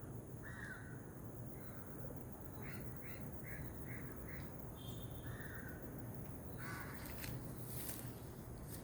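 Birds calling over a steady outdoor background: a short call just after the start, then a run of about five quick, evenly spaced notes, and another call a couple of seconds later. Brief bursts of hissing noise come near the end.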